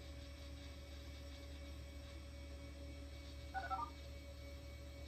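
Vintage Apple Macintosh IIvx giving a brief electronic chirp of quickly stepping tones, about three and a half seconds in, over a steady low hum.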